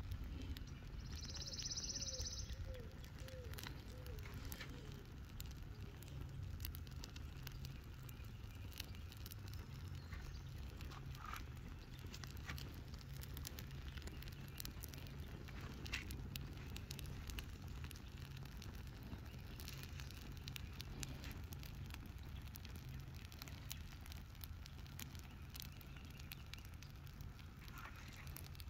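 Welcome mat burning on a charred tree stump: fire crackling, with scattered sharp pops and snaps over a steady low rumble.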